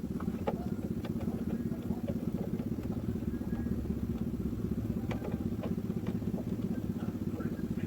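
An engine idling steadily with a fast, even low rumble, overlaid by scattered light metallic clicks and taps of hardware being handled.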